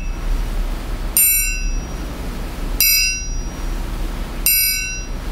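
Orchestral triangle struck three times with a metal beater, about a second and a half apart, each bright shimmering ring cut short after about half a second by the fingers of the holding hand damping it.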